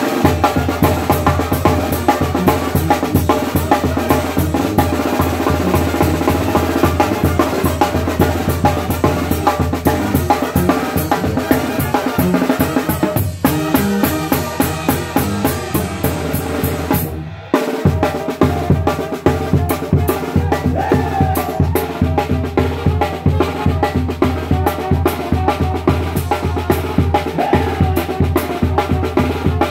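Live Mexican banda music heard close to the snare drum: fast snare strokes and rolls with cymbal hits over the band's brass and bass drum. The whole band cuts off for a moment about seventeen seconds in, then comes back in together.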